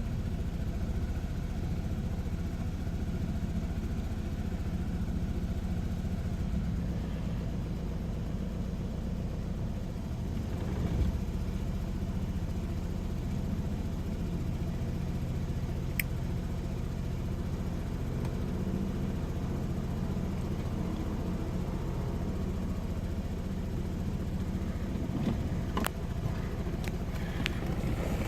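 2007 Saab 9-3 2.0T's B207R turbocharged four-cylinder engine idling, the rough idle that the owner is chasing and that now appears on every start. A sharp click about halfway through and a few more near the end.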